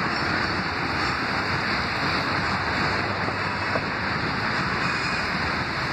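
CSX freight train of hopper cars rolling past, a steady, even rushing noise of wheels on rail.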